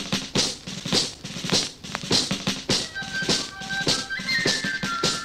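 Music with a steady drum beat played through a ceramic phono cartridge connected straight to an amplifier's line input. It is shrill and tinny with no bass, because the amplifier's low input impedance loads the cartridge down and lets only the high frequencies through. Sustained melody notes come in about three seconds in.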